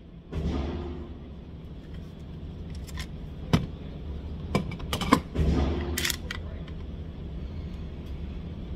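Suppressed AP5-P 9mm pistol with an Obsidian 9 suppressor firing 115-grain rounds: a handful of sharp shots at irregular intervals, the loudest about three and a half and five seconds in, over the steady hum of the range.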